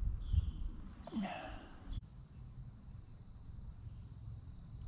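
Insects trilling steadily on one high pitch. A few low thumps and rustles in the first two seconds.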